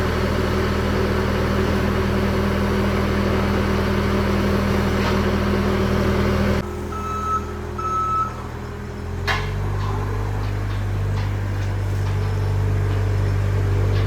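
Steady low machinery hum that cuts off suddenly; then two short high-pitched beeps about a second apart, a click, and a deeper steady machine hum starting up.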